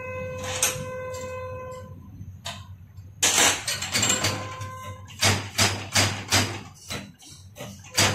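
Diesel injector nozzle firing on a hand-lever nozzle pop tester. Short, sharp hissing spray bursts come as the lever is pumped: a long one about three seconds in, then four in quick succession a little past the middle and one more near the end, as a nozzle already set to its opening pressure is re-checked. A steady tone sounds for about the first two seconds.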